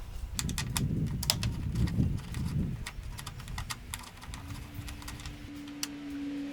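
Small sharp clicks and light rattles of a screwdriver and screws being worked out of a motorcycle's front plastic panel, over a low rumbling handling noise in the first three seconds. A steady low hum comes in about four seconds in.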